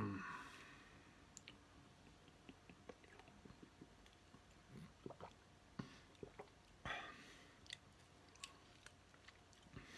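Faint mouth sounds of someone drinking mango juice with coconut gel pieces and chewing the gel: scattered small clicks, with a louder one about seven seconds in.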